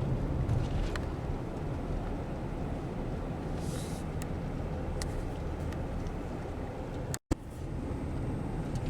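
Steady road and engine rumble inside a moving truck's cabin, with a few faint ticks and a brief cut to silence about seven seconds in.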